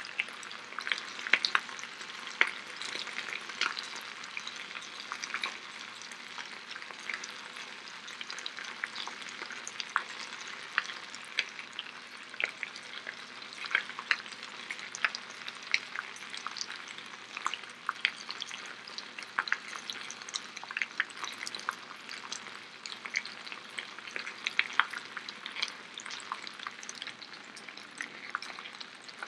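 Layered potato slices (galettes) frying in two skillets: a steady sizzle with frequent sharp crackles and pops.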